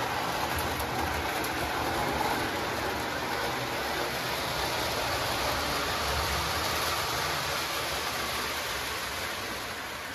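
Lionel O-gauge model trains running on the layout's track: a steady rumble of wheels and motors, easing off slightly near the end.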